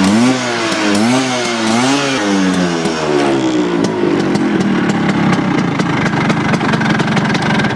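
Vintage Vespa's two-stroke engine being revved: the engine note rises and falls twice, then drops to a lower, uneven idle with a rapid crackle. The throttle is worked to keep the cold, stall-prone engine running while it warms up.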